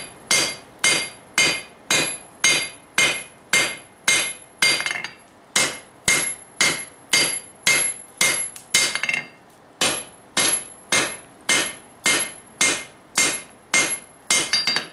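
Hand hammer striking red-hot steel on a Peter Wright anvil while the bar is drawn down: a steady rhythm of about two blows a second, each with a short metallic ring. The hammering pauses briefly about five and nine and a half seconds in.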